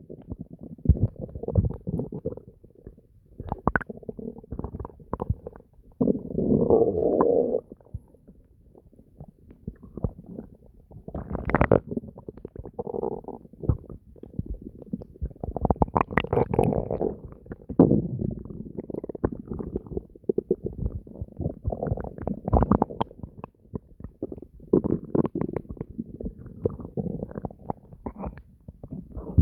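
Human stomach gurgling and growling: a constant run of short bubbling pops and gurgles, with longer deep rumbles about six seconds in and again around sixteen seconds in.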